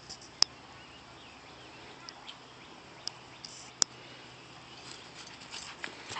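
Quiet outdoor yard ambience with faint bird chirps, broken by a few sharp clicks, the loudest about half a second in and near four seconds in.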